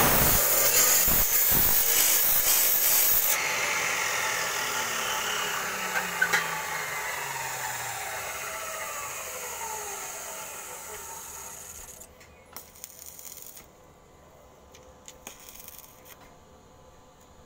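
Makita abrasive cut-off saw grinding through a metal tube, with a loud hissing grind for the first three seconds or so. The cut ends and the motor winds down with a falling whine for about eight seconds. After that there are only faint clicks and knocks.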